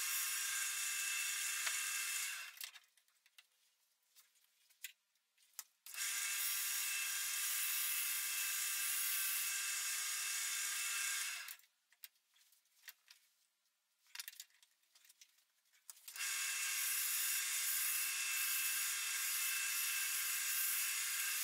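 Wood lathe running with abrasive sanding against the spinning wood: a steady hiss over a steady motor hum, in three stretches of about three to six seconds. Between the stretches are near-silent gaps with a few faint clicks.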